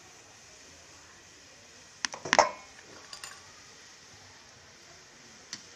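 Metal utensils clanking against a steel kadhai: a tight cluster of sharp, ringing clinks about two seconds in, a few lighter clinks a second later, and one more near the end.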